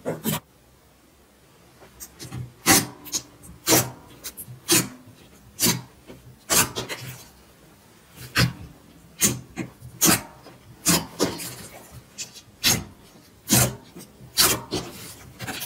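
Hands pressing and squishing clear orange slime, giving short sharp pops and squelches about once a second, some in quick clusters.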